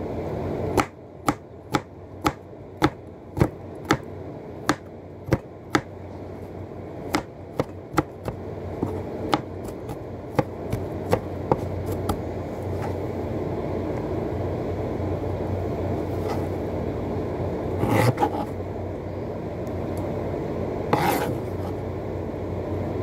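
Kitchen knife chopping garlic cloves on a cutting board: sharp chops about two a second for the first half, then only a few, with two louder knocks near the end. A steady low rumble builds underneath in the second half.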